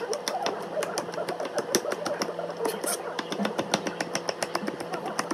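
Kitchen knife chopping rapidly on a plastic cutting board, mincing small pieces with quick, even taps, several a second.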